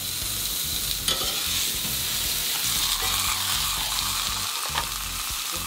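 Ribeye steak frying in hot olive oil in a cast-iron skillet: a steady sizzle, with two light clicks, one about a second in and one near the end.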